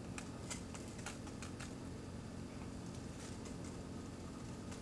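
Light, irregular ticks and rattles from a plastic spice shaker of paprika being shaken over fish fillets, in small bursts, over a faint steady hum.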